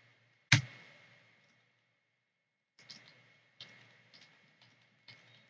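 Computer keyboard keys clicking as copy-and-paste shortcuts are pressed to duplicate text: one sharp click about half a second in, then a few fainter, spaced clicks from about three seconds on.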